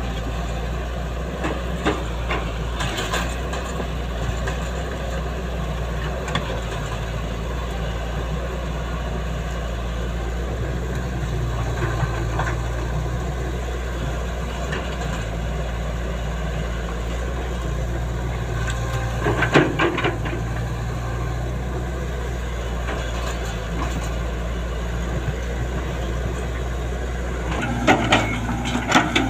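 Sany SY135F hydraulic excavator's diesel engine running steadily, with a few short knocks about two thirds of the way in and again near the end.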